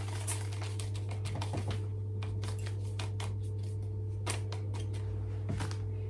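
A plastic sachet crinkling and crackling in the hand as powdered cookie mix is shaken out of it into a ceramic mug: a run of irregular light ticks over a steady low hum.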